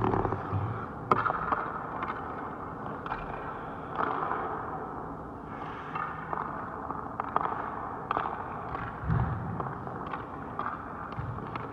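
Echoing cracks of hockey pucks and sticks striking in an ice rink, scattered every one to two seconds, over a steady hiss of skates and rink noise.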